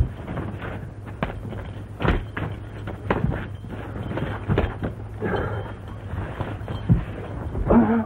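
Fistfight on dirt ground: irregular thuds of blows, bodies and feet scuffling, with short grunts about five seconds in and again near the end. A steady low hum of the old optical film soundtrack runs underneath.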